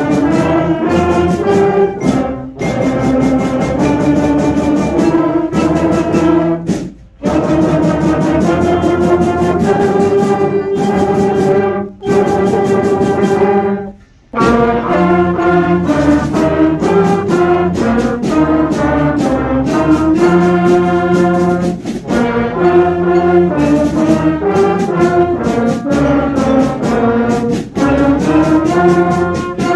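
Beginning concert band of brass and woodwinds playing held chords in rhythm, brass to the fore, with short breaks about seven and fourteen seconds in.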